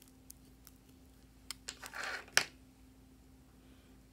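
Scissors cutting pieces off small coloured sticks: light handling clicks, then a short swish and one sharp snip about two and a half seconds in.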